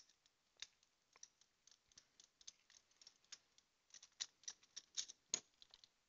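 Faint, irregular small metal clicks and scrapes of a screwdriver turning out the retaining screw inside an Abus Rock 83/55 padlock to free the core. The clicks come closer together and a little louder about four to five seconds in.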